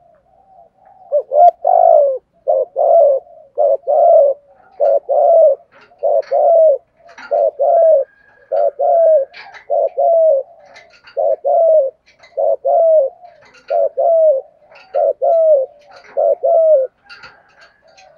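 Male spotted dove cooing: a run of about fourteen rapid coo phrases, roughly one a second, starting about a second in and stopping shortly before the end.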